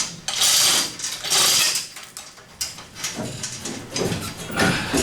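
Two short bursts of an air tool, each about half a second, as the engine's motor mounts are bolted in, followed by a few light metal clanks.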